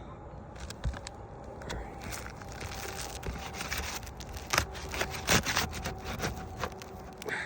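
Old, brittle asphalt shingles being pried apart at their seal strips, crackling and scraping, with a few sharp cracks about four and a half and five and a half seconds in as a shingle tears.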